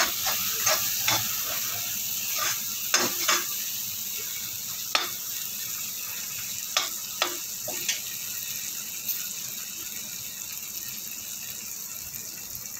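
Onion-tomato masala sizzling in oil in a metal kadhai, stirred with a steel spoon that scrapes and knocks against the pan about ten times, the knocks thinning out after the first half. The stirring keeps the masala from sticking; the sizzle slowly fades.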